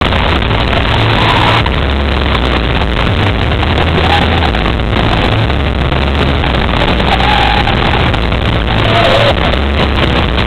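A live pop-rock band playing loud, with electric guitar and a heavy, steady bass, recorded from the crowd so overloaded that it comes out muddy and distorted.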